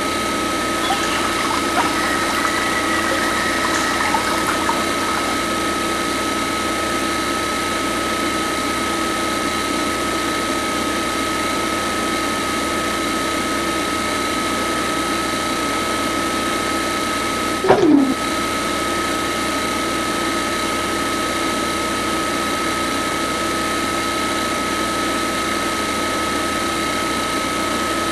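Small DC motor of a homemade toy borewell drilling rig whining steadily as it turns the threaded-rod drill down into wet mud. About eighteen seconds in there is a brief blip that drops in pitch, and then the steady whine carries on.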